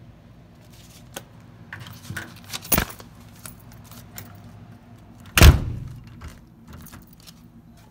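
Keys jangling and clicking at a hotel room door with a brass deadbolt and lever handle. There is a sharp knock nearly three seconds in, then a loud, heavy thud about five and a half seconds in as the door shuts.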